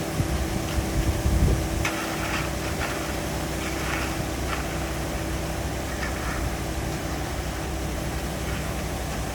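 An engine running steadily with a low rumble, a faint steady hum that fades out about halfway through, and a few short hissy noises in the first half.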